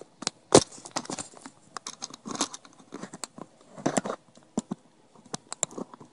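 Handling noise close to the microphone: irregular light clicks, taps and short rustles of small plastic parts being moved about, with the sharpest click about half a second in.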